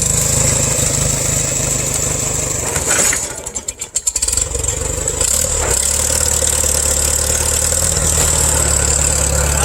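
International 140 tractor engine running under load while pulling a stump out of the ground. The sound dips and breaks up for about a second a little over three seconds in, then the engine runs steadily with a deeper low hum.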